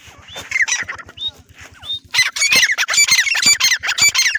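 Female grey francolin calling: a few short chirps, then from about halfway a loud, rapid run of harsh, repeated notes.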